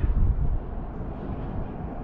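Wind buffeting the microphone: a low, uneven rumble, heaviest in the first half second.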